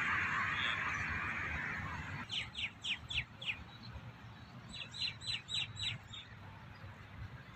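A small bird calling in two quick runs of about five sharp, falling notes each, a second or so apart. Before the calls, a hiss fades away over the first two seconds.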